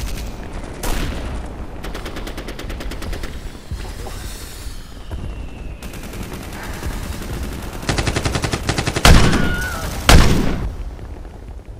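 Battle-scene gunfire sound effects: bursts of rapid automatic fire, then two loud blasts about a second apart near the end.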